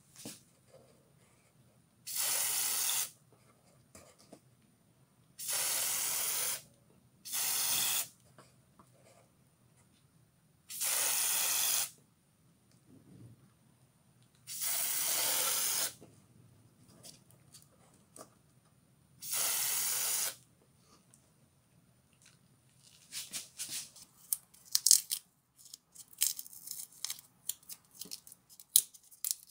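Six short hisses of an aerosol spray-paint can, each about a second long, with pauses between. Near the end, crinkling and crackling as paint-covered masking tape is peeled off.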